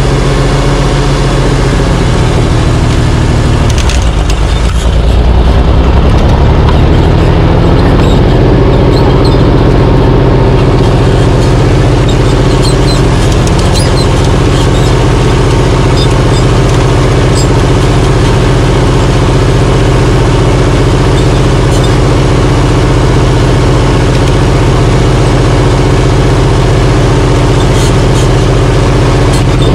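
Oliver 1850 tractor engine pulling a chained log. About four seconds in, the engine note dips and then climbs over the next few seconds as it takes up the load, then runs steady.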